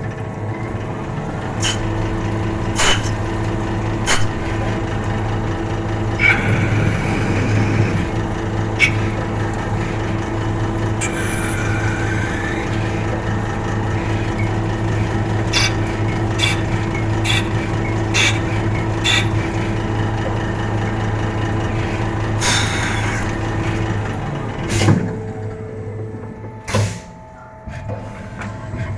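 Small CNC lathe running in production: a steady motor and spindle hum with repeated sharp clicks and knocks from the machine's moving parts, and two short hissing stretches. The hum drops away briefly near the end before picking up again.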